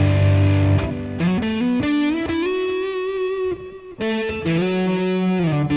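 Overdriven electric guitar: a low chord rings for about a second, then a single-note lead line with bends and a long held, wavering note, pausing briefly about four seconds in.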